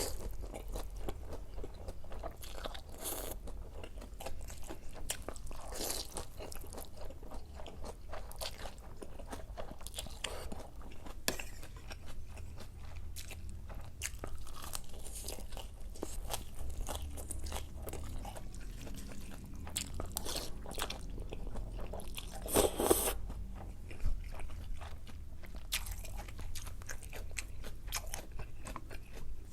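Close-miked eating: a person chewing and crunching food with open mouth sounds, irregular crunches throughout and one louder crunch about three quarters of the way through.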